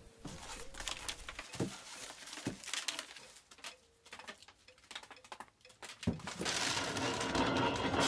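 Dry corn husks rustling and tearing as ears of maize are husked by hand, with a few dull knocks. About six seconds in, a hand-cranked corn sheller starts up: a steady, dense rattle of kernels being stripped from the cob.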